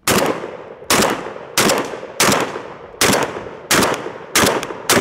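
A 12-gauge Beretta A300 Ultima Patrol semi-automatic shotgun fired rapidly: eight shots in about five seconds, each followed by a short echoing tail.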